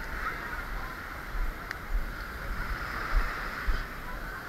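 Small waves washing onto the beach as a steady hiss, with a few low thumps on the microphone.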